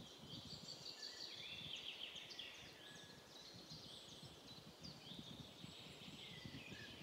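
Faint birdsong, many short high chirps and warbles, over a low outdoor rumble of light wind.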